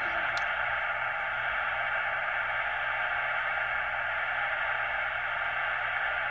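Steady, even hiss of radio-style static, unbroken, with a faint low hum beneath it.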